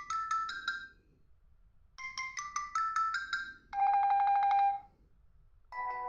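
Samsung Galaxy S4 mini ringtones previewed one after another, each cut short. A rising run of chime-like notes plays twice, then a short buzzy tone pulsing fast, and near the end a different melody starts.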